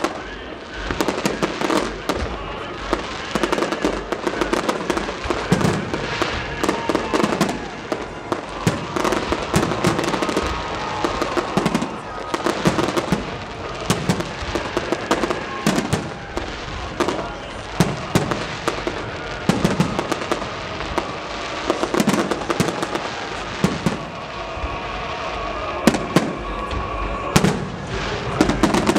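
Aerial fireworks display: shells bursting in quick succession, many sharp bangs and crackles, with the loudest bangs a few seconds before the end.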